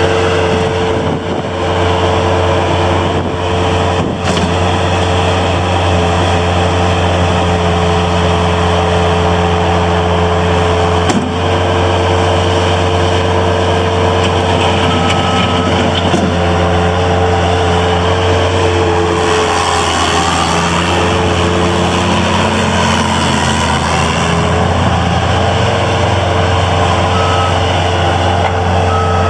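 1999 Bobcat 763 skid steer loader's diesel engine running steadily, with a couple of short clunks early on and its note shifting for a few seconds past the middle.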